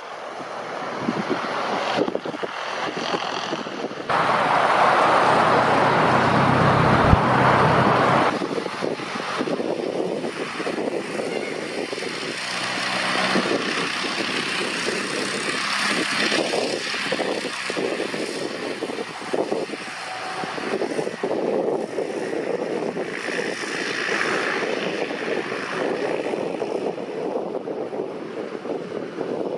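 Light single-engine propeller aircraft running on an airfield as they taxi and roll on the runway. The sound steps up suddenly about four seconds in, is loudest for about four seconds, then drops back to a steady, varying drone.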